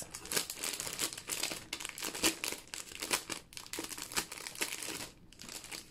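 Clear plastic sleeve crinkling and crackling as it is handled and pulled open around a folded piece of linen fabric. The crackles come thick and irregular, then thin out about five seconds in.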